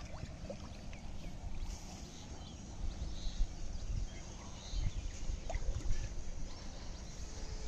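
Uneven low rumble of wind buffeting the microphone outdoors, growing stronger and gustier from about three seconds in.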